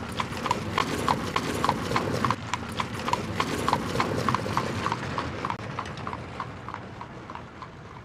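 Horse's hooves clip-clopping at a steady walk, about four beats a second, over a low rumble, fading away near the end.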